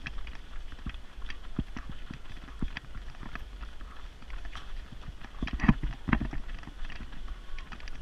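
Running footsteps striking a paved road in an uneven beat, with a cluster of louder knocks a little past halfway and a steady low rumble underneath.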